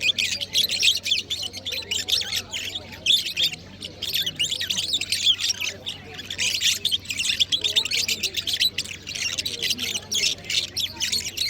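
Many small caged birds chirping together in a dense, continuous chatter of short high-pitched calls.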